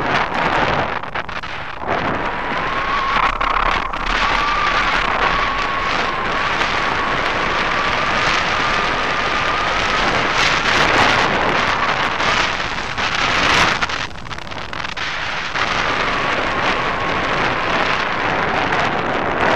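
Airflow buffeting the microphone of a wing-mounted camera on a hang glider in flight: a loud, uneven rush of wind. A faint thin whistle slowly rises in pitch for several seconds under it and comes back briefly near the end.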